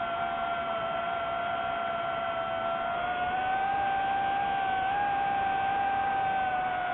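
Electric motors and propellers of a camera drone in flight, a steady high whine with an overtone. Its pitch rises slightly about three seconds in and drops back near the end as the throttle changes.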